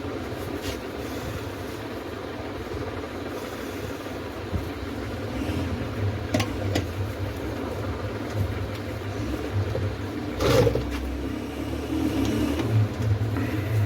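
Hot air rework station blowing steadily while the reflashed BIOS chip is soldered back onto the DVR board, with a few small clicks and knocks, the largest about ten seconds in.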